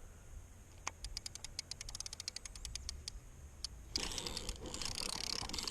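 Spinning fishing reel being cranked, giving a fast run of light clicks at about ten a second as line is retrieved, with a fish coming on. About four seconds in, a sudden louder rush of noise takes over.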